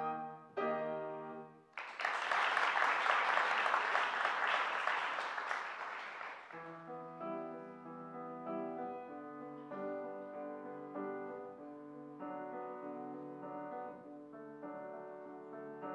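Grand piano being played: a run of notes, then about two seconds in a loud burst of noise that covers the playing for some four seconds, after which quieter held chords and melody go on.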